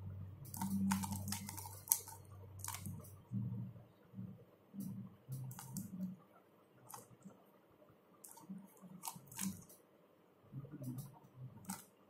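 A 3x3 Rubik's cube turned by hand: irregular quick plastic clicks as its layers snap round, several close together about half a second in, with soft low thuds of the cube being handled.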